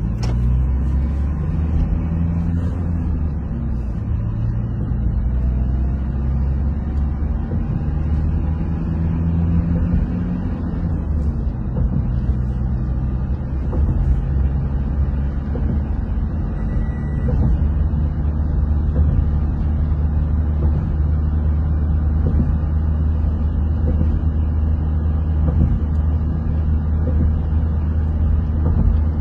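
A vehicle driving along a highway: a steady low rumble of engine and tyre noise that rises and falls slightly but never stops.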